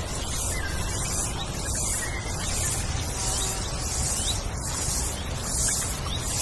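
Wind rustling through leaves, with a low wind rumble and a high hiss that swells and fades about once a second, and faint short bird chirps over it.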